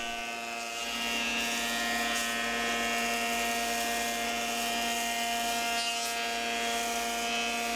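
Kity 636 jointer-planer running, its cutterhead planing a wooden board as it is pushed across the jointer table: a steady machine whine with a hiss above it, growing a little louder about a second in.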